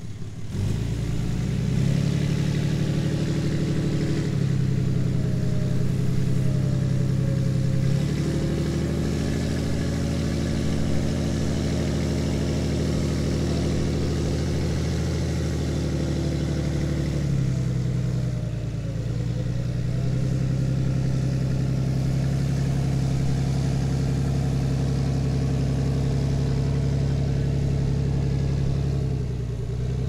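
Pickup truck engine running steadily under load while the truck is winched out of soft ground, its pitch stepping up and down several times.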